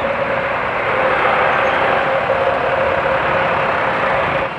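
Motorcycle engine running while riding in slow traffic, mixed with road and wind noise, with a faint steady whine.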